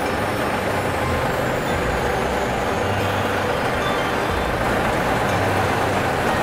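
Large truck's diesel engine running steadily, with a low rumble under an even mechanical noise.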